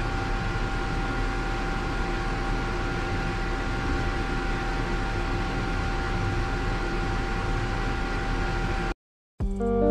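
Ventilation blower running with a steady whir and a faint constant hum, cutting off suddenly near the end.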